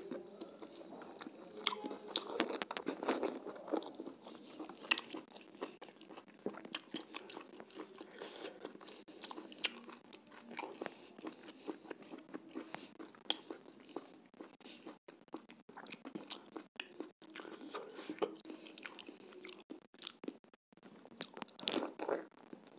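A person chewing and biting chicken curry and roti eaten by hand, with frequent sharp wet mouth clicks and crunches.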